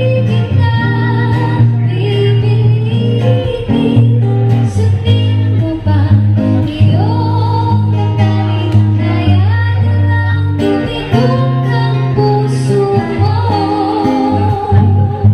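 Live acoustic jam: a singer with guitar accompaniment over a steady bass line.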